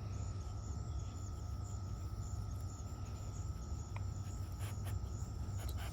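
Insects, cricket-like, trilling steadily at a high pitch over a constant low rumble.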